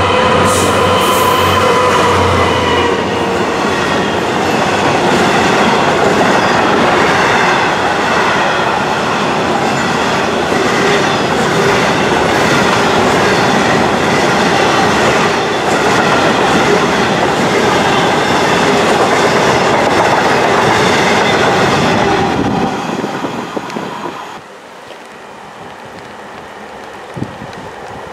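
Class 66 diesel-electric locomotive's EMD two-stroke V12 passing at speed, its engine note clear for the first few seconds, followed by a long train of loaded bogie hopper wagons rolling past with a steady wheel rumble and rhythmic clatter over the rail joints. The noise falls away near the end.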